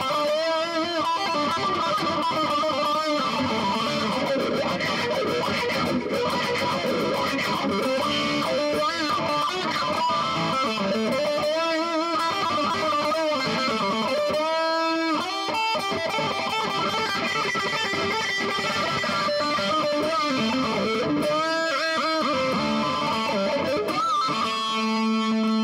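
Charvel San Dimas electric guitar played without pause through a Dunlop CBM95 Cry Baby Mini wah pedal and a Boss Katana 100 Mk II amp, the wah rocked back and forth so the tone of the notes sweeps up and down.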